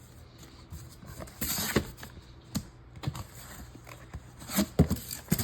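Cardboard firework cake boxes being handled and shifted: irregular knocks, scrapes and dull thuds, louder and more frequent near the end.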